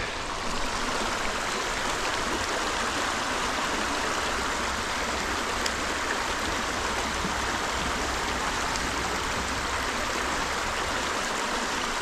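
Shallow creek water running steadily over rocks in a riffle, an even, unbroken rushing.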